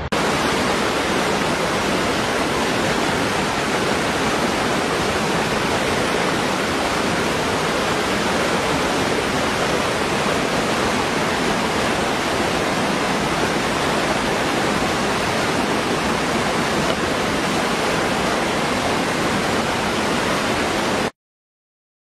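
Small waterfall pouring over rocks into a pool: a steady rushing and splashing of water that cuts off suddenly near the end.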